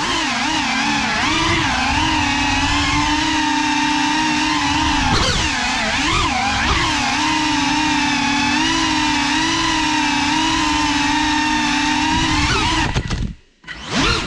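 Cinelog 35 FPV quadcopter's motors and propellers whining, the pitch rising and falling with the throttle, heard close from the GoPro riding on the drone. About 13 seconds in the sound drops out almost completely for under a second, then comes back.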